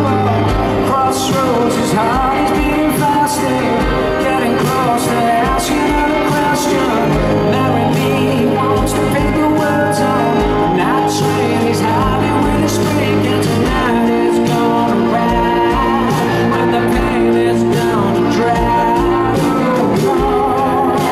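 Live rock band playing: a male lead vocal singing over electric guitars, sustained bass notes and a steady drum beat.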